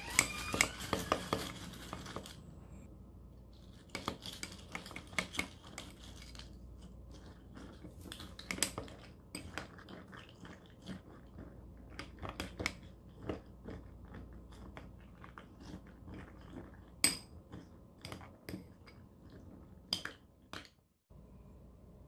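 Metal spoon stirring corn flakes and milk in a drinking glass: repeated clinks and scrapes against the glass, in busy clusters at first, then scattered single clinks, a few of them louder.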